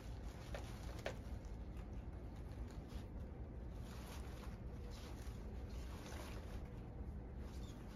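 Faint rustling and scattered small crackles of a bunch of artificial sunflowers, their leaves and wire stems handled and turned in the hand, over a low steady hum.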